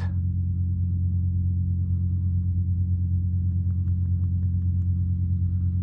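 A steady low droning hum with a few even overtones, unchanging throughout, with faint light ticks above it around the middle.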